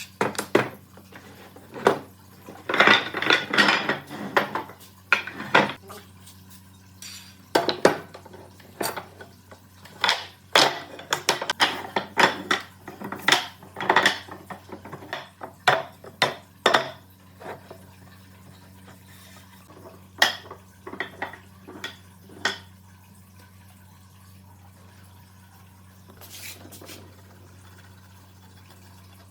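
Irregular clatter of hard objects knocking and clinking together, busy at first and then sparse, over a steady low hum.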